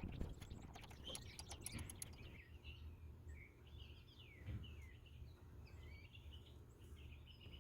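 Faint birds chirping, short rising and falling calls over a low steady hum, with a few light clicks and knocks in the first couple of seconds.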